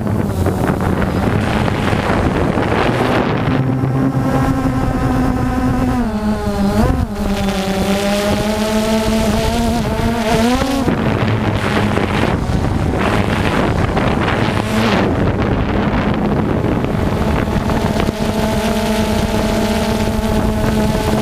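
Quadcopter drone's propellers and motors buzzing, a steady pitched hum whose pitch dips and rises about a third of the way in and again about halfway as the motors change speed, with wind noise on the microphone.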